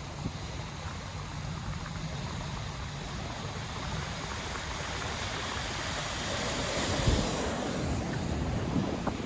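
Heavy ocean surf breaking and washing, a continuous rush that swells louder over the second half, with wind buffeting the microphone.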